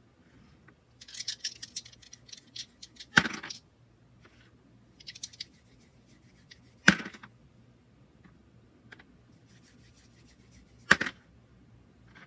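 Small resin dice clicking and rattling against each other in short bursts of rapid ticks. Three sharp knocks about four seconds apart stand out as the loudest sounds.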